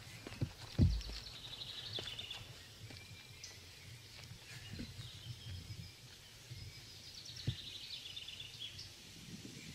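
A songbird singing a trilled phrase that falls in pitch, twice, over the low thuds of footsteps on wooden steps and grass; the loudest sound is a heavy footfall about a second in.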